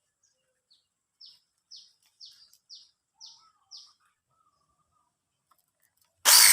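A bird gives a run of six short, falling chirps, about two a second. Near the end the mini chainsaw starts abruptly and loudly.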